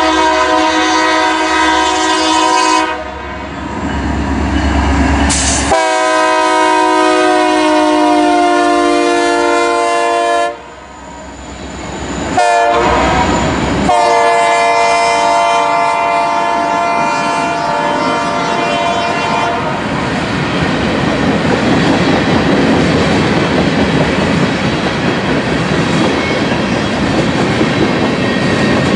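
Diesel freight locomotive's multi-note air horn sounding the grade-crossing signal: two long blasts, a short one and a final long one. After that comes the steady rumble and clatter of freight cars rolling past over the rail joints.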